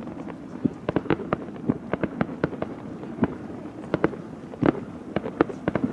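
Fireworks display: shells bursting in a rapid, irregular string of sharp bangs and crackles over a steady low rumble.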